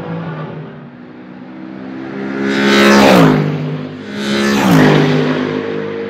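Mercedes SLS AMG GT3 race car's V8 engine at full throttle, running distant at first, then two loud close pass-bys, at about three seconds and again near five seconds, each ending in a sharp drop in pitch as the car goes by.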